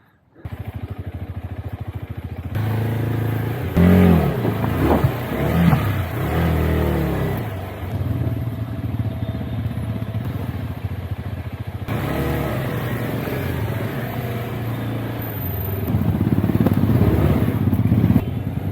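Motorcycle engine running on a rough trail at low revs, revved up and down several times between about four and seven seconds in, and pulling harder again near the end.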